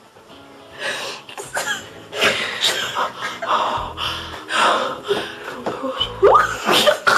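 Two young women's breathy, wheezing laughter and gasps in uneven bursts, with a rising squeal near the end.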